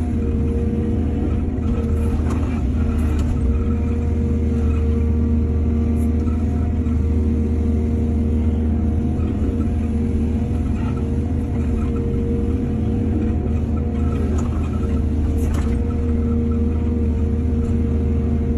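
Diesel engine of an excavator running steadily under load, with a low drone and a few brief clanks or scrapes of the bucket.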